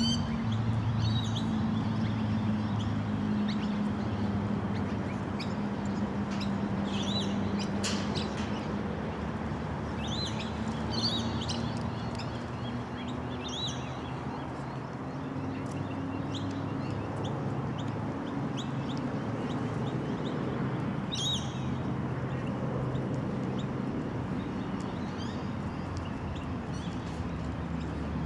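Birds chirping in short, scattered calls every few seconds, over a steady low drone.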